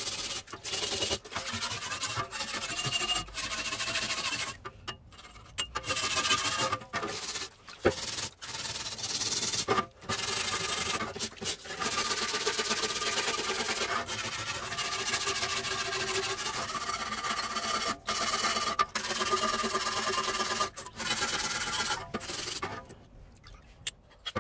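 Wire brush scrubbing a wet, rusty machete blade in a basin of water in quick back-and-forth strokes, with the water splashing. There are many brief pauses between bursts of strokes, and the scrubbing stops just before the end.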